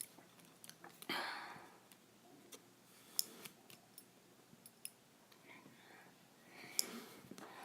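Faint, scattered clicks and taps from small plastic and metal parts being handled: the bearings and zip ties of a homemade zip tie spinner. There is a soft breathy rustle about a second in and again near the end.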